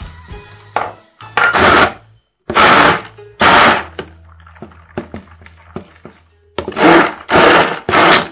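Hand-held stick blender pulsed in short bursts of about half a second in cake batter, breaking chocolate chips into smaller pieces: three bursts, a pause of a couple of seconds, then three more.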